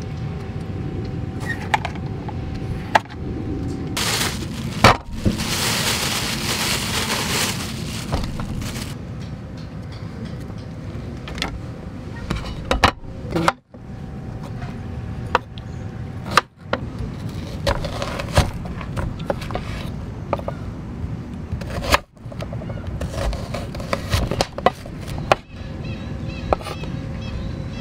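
Kitchen knife slicing king oyster mushrooms on a wooden cutting board: scattered sharp taps and scrapes of the blade against the board, over a steady low background rumble. About four seconds in comes a hiss lasting several seconds.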